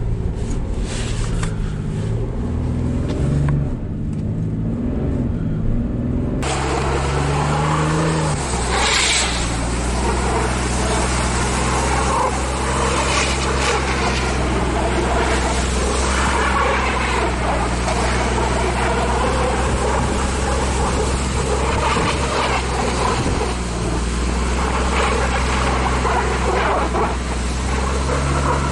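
2005 Jeep Cherokee KJ's 3.7 V6 engine pulling under load up a snowy hill in rear-wheel drive, first heard muffled inside the cabin. About six seconds in the sound cuts to outside beside the rear wheel: the engine runs on, with tyres churning and throwing snow.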